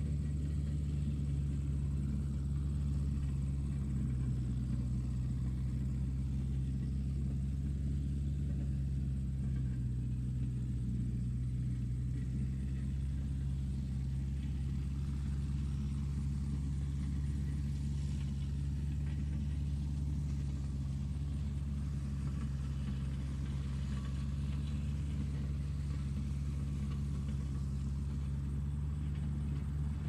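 Tractor engine running at a steady speed, a low even drone that holds the same pitch and loudness throughout.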